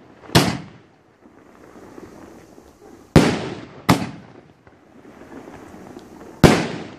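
18-shot consumer firework cake firing, its aerial shells bursting overhead in four sharp bangs that each trail off briefly: one near the start, two close together about three and four seconds in, and one near the end.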